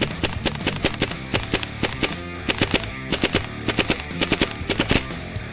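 Air Ordnance SMG-22 .22 pellet gun firing in short full-auto bursts, rapid sharp cracks about ten a second, several bursts in a row. Guitar music plays underneath.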